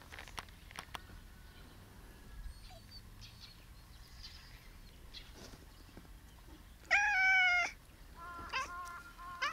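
A domestic cat meowing: one long, loud meow about seven seconds in, followed near the end by a quick run of short, clipped calls.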